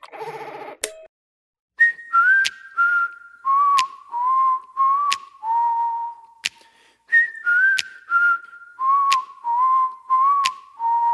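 A person whistling a short tune that steps downward note by note, played twice, with a sharp click on many of the notes, as part of a country music recording.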